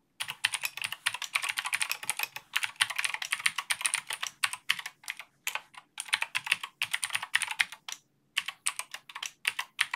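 Typing on a computer keyboard: quick runs of keystrokes with short pauses between them, one lasting about half a second near the end.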